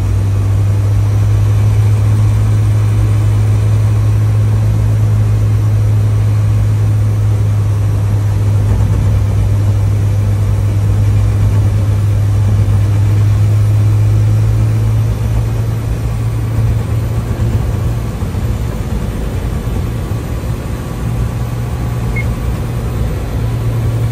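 An aircraft pushback tug's engine running steadily as it pushes an airliner back, heard from inside the tug's cab as a loud low drone. The drone wavers in level from about fifteen seconds in.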